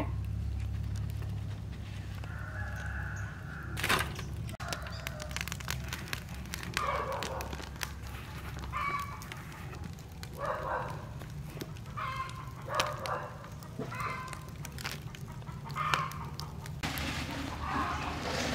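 Chickens clucking and calling repeatedly, short cries every second or two, including a longer crow-like call, over a low steady hum. A sharp crack about four seconds in.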